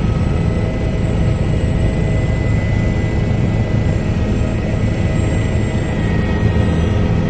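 Helicopter in flight heard from inside the cabin: a steady, loud drone of rotor and engine, with thin steady whining tones above it.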